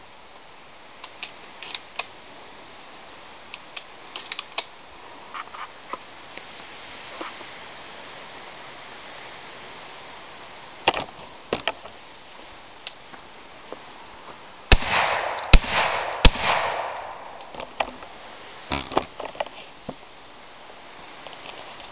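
A gun fired three times in quick succession, the shots under a second apart and sharp and loud, about fifteen seconds in. Fainter scattered clicks and snaps come before and after.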